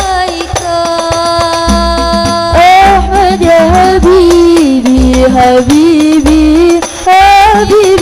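Female voices singing an Arabic sholawat together, with bending melismatic runs, amplified through microphones and a PA sound system, over banjari frame drums (terbang) thumping in groups.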